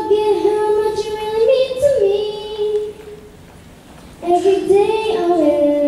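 A young girl singing solo into a handheld microphone, with no accompaniment: two phrases of held notes separated by a pause of about a second.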